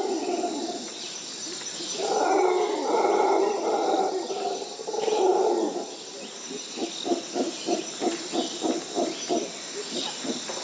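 Rainforest animal calls: two long drawn calls, then a rapid run of about a dozen short calls at roughly four a second, over a steady high-pitched insect drone.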